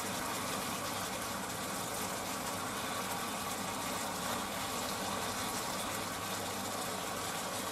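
Sliced onions and pork sizzling steadily in a frying pan as they are stirred with chopsticks, over a steady mechanical hum.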